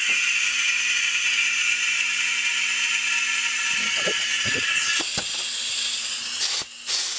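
A powered fluid-transfer pump whirring steadily as it pushes automatic transmission fluid through a hose into the transmission's fill port, topping up a transmission found low on fluid. The whir drops away about five seconds in, followed by a few short bursts of noise near the end.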